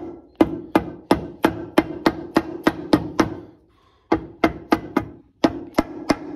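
Soft-faced mallet repeatedly tapping an aluminium transmission case half, about three blows a second, with a short pause a little past halfway: the two sealed case halves of a Polaris Ranger 570 transmission being eased down and seated together.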